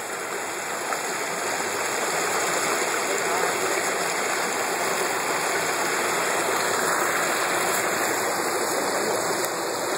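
Shallow river water rushing over stones in a riffle: a steady, even rush that grows louder over the first couple of seconds and then holds.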